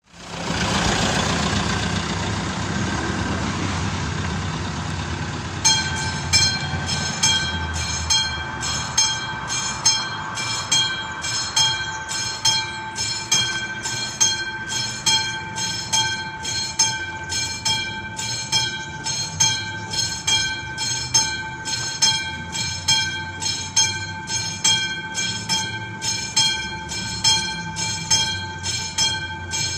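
Level-crossing warning bell of AŽD 71 signals, a classic mechanical bell, starting about six seconds in and striking steadily about three times every two seconds with a ringing tone: the crossing is activated for an approaching train. A broad rushing noise fades away in the first few seconds.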